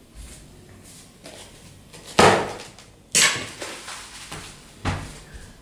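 Three loud knocks and thumps about a second apart, from a person sitting down at a wooden table and setting a cardboard food cup down on it.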